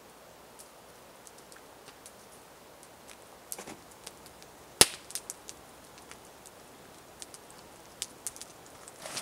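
Wood campfire crackling: scattered sharp snaps and pops from the burning logs, with one loud pop about halfway through.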